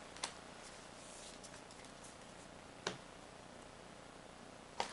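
Quiet room with a few light taps of trading cards set down on a stack: two distinct clicks, one just after the start and one about three seconds in, with fainter ticks between. Near the end a foil booster-pack wrapper starts to crinkle.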